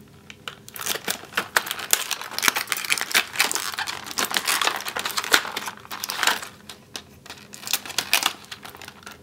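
Clear plastic packaging of a boxed doll accessory set crinkling and crackling as hands handle it and work it open, in quick irregular crackles with brief lulls.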